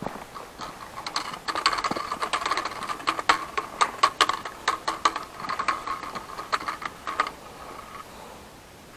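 Footsteps clambering over rocks: irregular clicks, taps and scuffs of shoes on stone, many a second, stopping about a second before the end.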